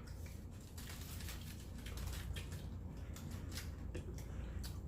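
Close-up eating sounds: irregular crisp clicks and crackles of chewing, several a second, over a steady low hum.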